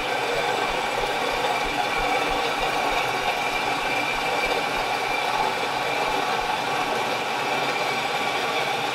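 Index vertical milling machine running steadily, its spindle turning an edge finder, while the table travels along the X axis: an even mechanical hum with a light rattle.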